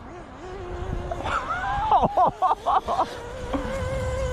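Small nitro-fuel engine of a HoBao Hyper VS2 radio-controlled car running at high revs. Its whine rises and falls quickly several times about a second and a half in as the throttle is worked, then holds a steady high note near the end. The owner feels the engine is tuned a bit rich on the low-speed needle.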